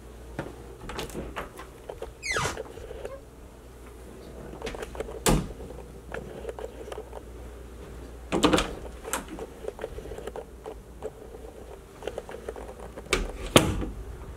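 Scattered knocks and thuds of someone moving through the rooms of a house with a handheld camera, the loudest about five, eight and a half and thirteen and a half seconds in, over a steady low hum. A quick falling swish comes about two seconds in.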